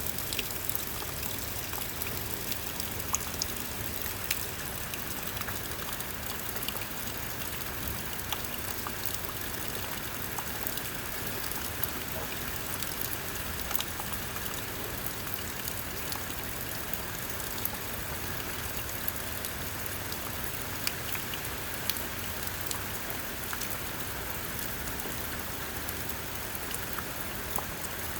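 Heavy rain falling steadily, a constant hiss with many sharp drop ticks scattered through it.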